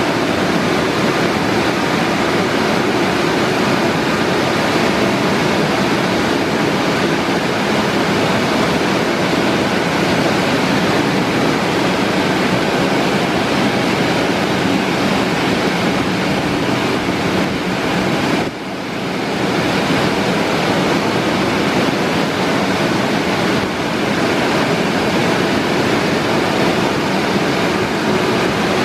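Istobal M'Start rollover car wash's rotating brushes and water spray scrubbing a car: a steady, loud rushing and swishing, with one brief dip about two-thirds of the way through.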